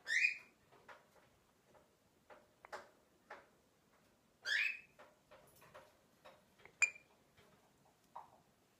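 Swainson's lorikeet giving two short, harsh screechy calls a few seconds apart and a short sharp chirp near the end, with faint clicks in between as it rubs its head.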